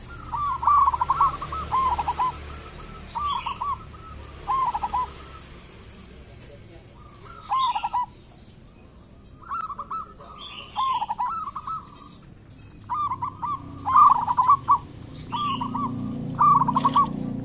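Zebra doves (perkutut) cooing: short rolling coo phrases made of quick stuttering notes, repeated every second or two. Thin high chirps from another small bird fall between the phrases.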